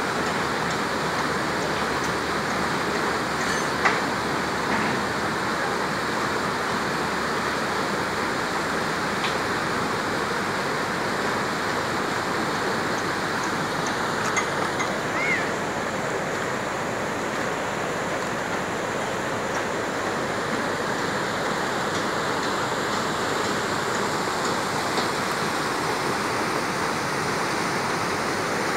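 Steady rush of a shallow, rocky river, with a few faint clicks, one sharp click about four seconds in.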